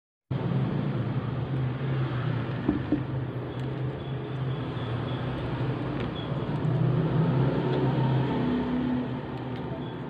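Steady background hum and noise with a low drone, like a running machine or distant traffic, with a few faint clicks about three seconds in.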